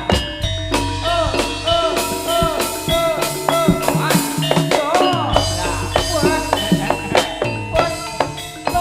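Live jaranan ensemble music: drums and pitched percussion playing a brisk, steady rhythm over sustained low tones.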